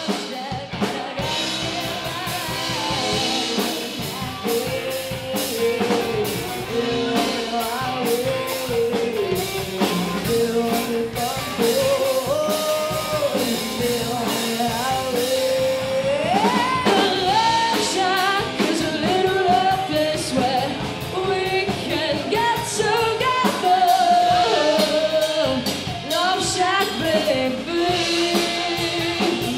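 Live rock band playing: singing over electric guitars and a drum kit.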